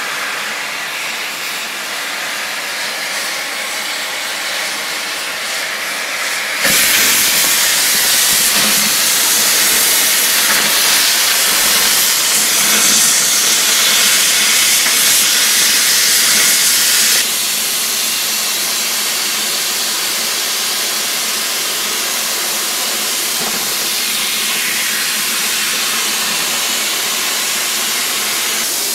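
Oxy-fuel cutting torch of a Victor DC2400 duplicator hissing steadily as it burns through 4-inch-thick plate. It gets suddenly louder about seven seconds in and eases back down at about seventeen seconds.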